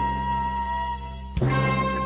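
Orchestral soundtrack music with held tones; a sudden sharp hit about one and a half seconds in, after which brass comes in fuller.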